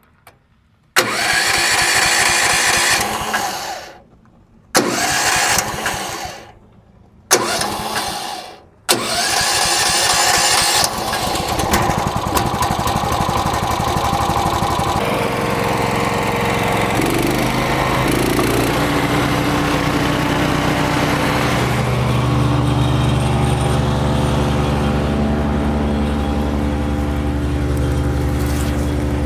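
MechMaxx P4206 wood chipper's gas engine being started: it fires and dies about four times in the first nine seconds, then catches and keeps running. It settles into a steady run with a couple of small shifts in pitch.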